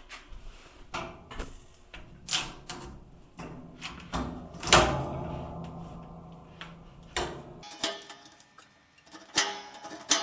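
Knocks and clicks of a length of picture-frame molding being handled and set in a mitre-cutting machine, with one sharp, loud cut about five seconds in that rings and fades over the next few seconds.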